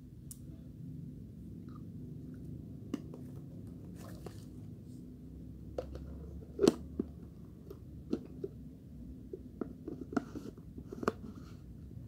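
Crunchy ABC biscuits being chewed, then a clear plastic food container's lid being fitted and pressed shut. There is one loud plastic snap a little past halfway, followed by a run of smaller clicks and taps, over a steady low hum.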